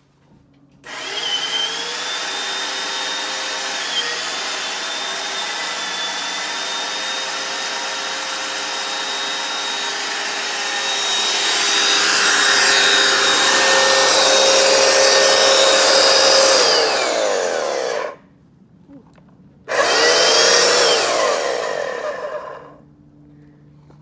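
Hoover upright carpet washer's motor running with a steady high whine, louder about halfway through. It is switched off and winds down, starts again about two seconds later, then winds down again near the end.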